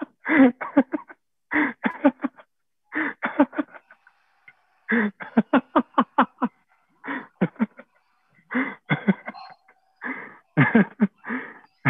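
A man laughing hard in fits of short, quick 'ha' bursts, four to six at a time with brief pauses between, heard over a video call's narrow, thin-sounding audio.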